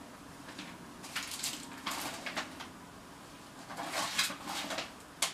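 Soft mouth noises of a man eating, chewing and smacking in a few short, noisy strokes with pauses between them, over a faint steady low hum.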